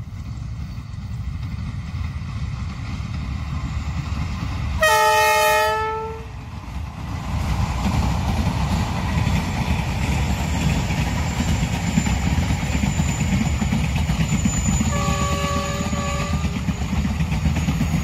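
D19E diesel-electric locomotive sounding its horn in one loud blast of over a second, about five seconds in. The passing passenger train's engine and wheels then rumble and clatter steadily, with a shorter, fainter horn note about fifteen seconds in.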